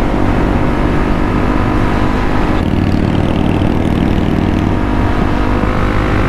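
Motorcycle engines running steadily at road speed, with wind rumble on the microphone. A little over two and a half seconds in, the sound turns harsher, with more hiss in the high end.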